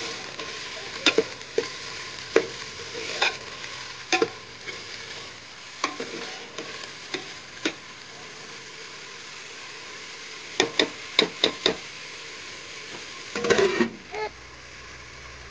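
Sliced onions, tomato and green chilli sizzling as they fry in a metal pot, stirred with a steel ladle that clinks and scrapes against the pot, with a quick run of about five taps past the middle. Near the end the stirring stops and a low steady hum takes over.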